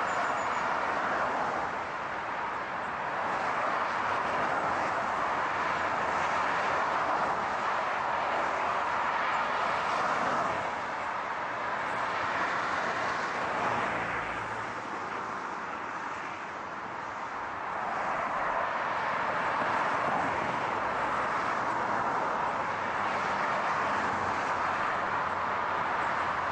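Road traffic: cars driving past at speed, a continuous rush of tyre and engine noise that swells and eases as vehicles go by.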